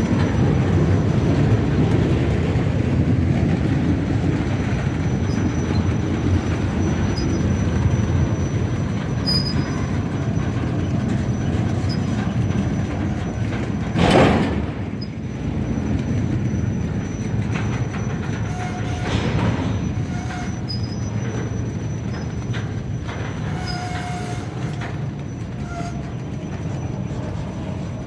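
Double-stack intermodal freight train rolling slowly past: a steady rumble and rattle of the well cars' wheels on the rails, with one loud bang about halfway through.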